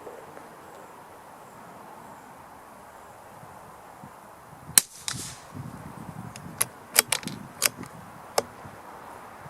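A single shot from a CZ457 bolt-action .22LR rifle firing CCI segmented hollow point subsonic ammunition, a sharp crack about halfway in. It is followed by several sharp metallic clicks over the next few seconds, typical of the bolt being worked to eject the case and chamber the next round.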